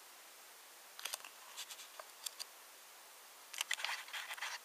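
Small scattered clicks and scratches over a steady faint hiss, growing into a quick run of clicking and scratchy rustling near the end: close handling noise.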